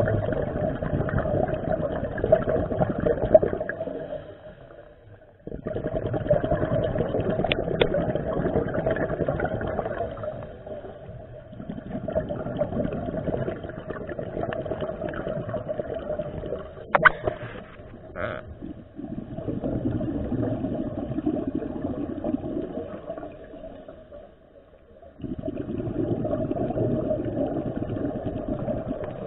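Scuba diver breathing through a regulator underwater: exhaled bubbles rush past the camera in long bursts of four to six seconds, each broken by a short quieter gap for the next breath in. A few sharp clicks come near the middle.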